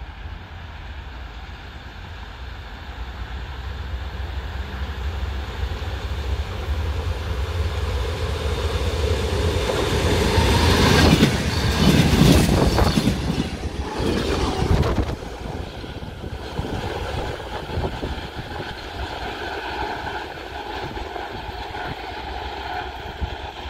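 DR1AM diesel multiple unit passing through at speed. It builds from a distant rumble to a loud passage about halfway through, with the clickety-clack of its wheels over the rail joints as the cars go by, then fades as it moves away.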